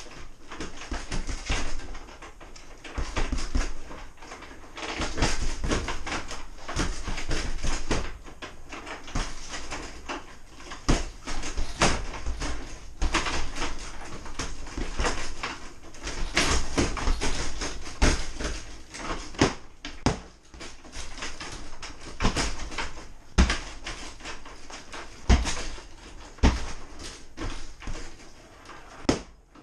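Repeated strikes landing on a hanging heavy punching bag: irregular thuds and smacks, in quick flurries at first and with a few sharper single hits in the second half.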